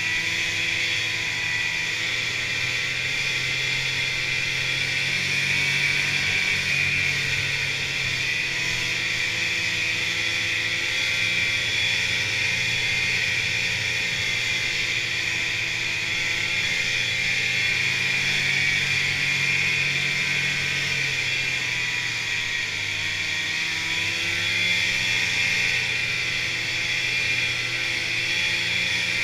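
Snowmobile engine running steadily while the sled cruises along a trail, heard from the rider's seat. The engine's pitch rises and falls a little with the throttle over a steady high hiss.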